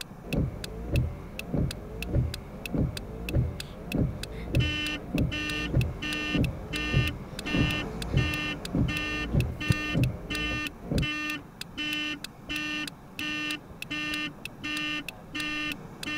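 Car alarm going off: the car horn pulses on and off about twice a second, starting about four and a half seconds in. Underneath are heavy low thumps, two or three a second, that stop about eleven seconds in.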